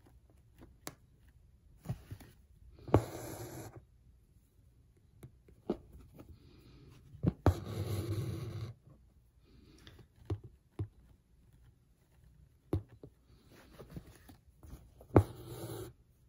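Hand embroidery: a needle popping through the hat's cotton twill in the hoop, then six-strand green embroidery floss drawn through the cloth in three longer scratchy pulls of about a second each, with scattered small clicks of the needle between them.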